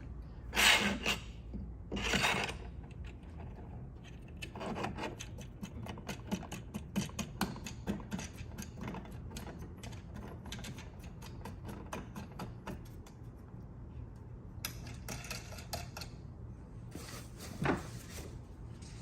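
Commode chair headrest parts being handled and fitted: a couple of knocks near the start, then a long run of quick small clicks and rubbing as the neck piece is worked into place and locked.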